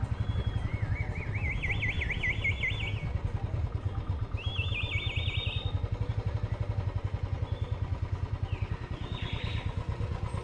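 Motorcycle engine running at low speed, a steady fast low thudding. Over it, a high warbling whistle sounds twice, with a short third one near the end.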